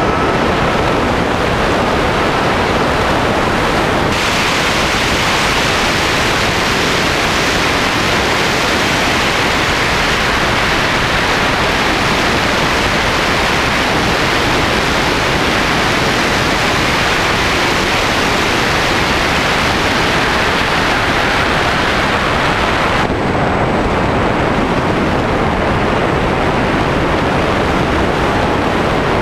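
Air rushing over a GoPro mounted on an S800 Sky Shadow FPV flying wing in fast flight, mixed with its brushless motor and propeller: a loud, steady roar. It turns brighter about four seconds in and duller again later on.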